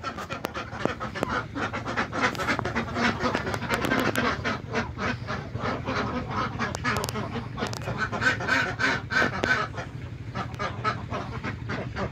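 A flock of laying ducks quacking continuously, many short calls overlapping, over a steady low hum.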